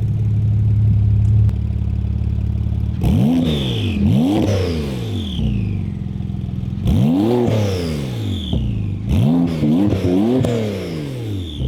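Porsche 911 Turbo S twin-turbo flat-six through a Fabspeed Valvetronic exhaust, idling and then blipped to sharp revs several times in quick groups. A high falling whistle follows each rev as the turbos spool down.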